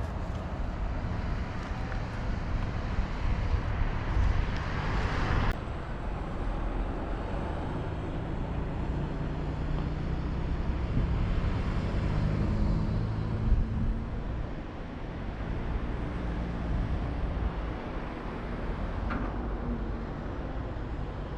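Outdoor road-traffic noise: a steady low rumble with vehicles passing. One swell cuts off abruptly about five seconds in, and another passes in the middle.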